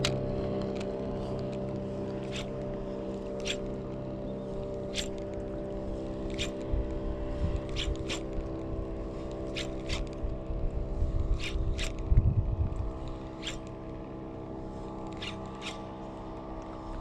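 A steady motor drone runs throughout, with sharp clicks about every second or so and a low rumble in the middle.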